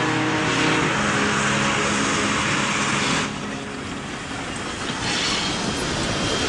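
Train running on the line: a steady rushing noise that drops back about three seconds in and comes up again near five seconds.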